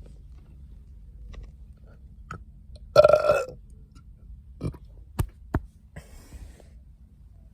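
A man's loud burp about three seconds in, followed by a few sharp clicks.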